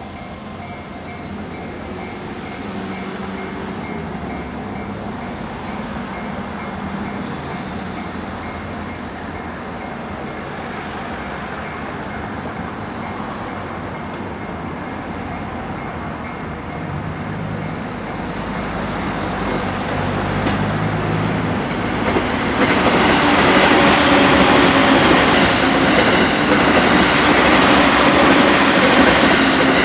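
Train running over the tracks at a level crossing: a steady rail rumble that builds over the second half and becomes much louder for the last seven seconds or so as the train passes close by.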